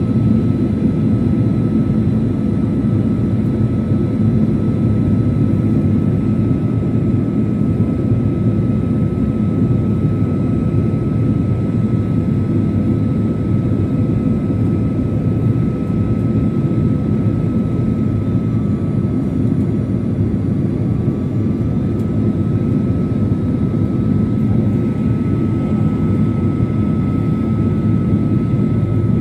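Airliner cabin noise on final approach: a steady low rumble of engines and airflow with a thin, constant high whine over it.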